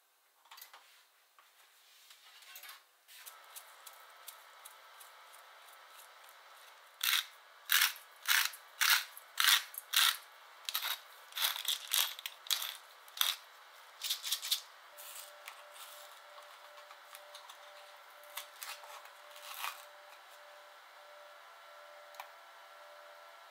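Small wire whisk and ingredients clinking in a stainless steel bowl while an egg, grated cheese and seasoning filling is mixed: a run of sharp clicks about two a second for some seven seconds, then scattered softer taps. A faint steady hum sets in about midway.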